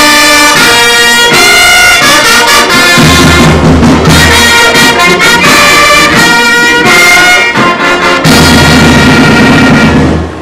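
Brass band music: trumpets and trombones playing a loud tune, with deep bass notes joining in twice. The music breaks off near the end.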